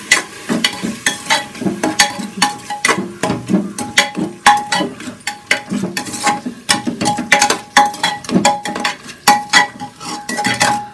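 Long steel spatula scraping and clinking against the inside of a metal pressure cooker while stirring tomatoes, onions and spices frying in oil, in quick irregular strokes, several a second.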